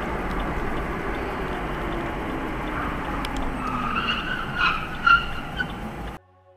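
Steady road and engine noise inside a car, then tires squeal in short broken bursts for a couple of seconds, with two sharp thumps about five seconds in. The sound cuts off suddenly just before the end.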